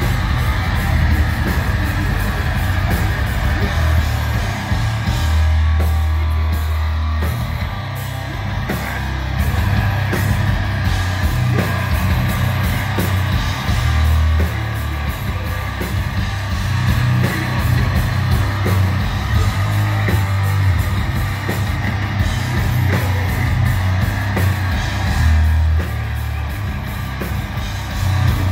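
Death metal band playing live: heavily distorted guitars, bass and pounding drums with growled vocals, loud and boomy as heard from the crowd.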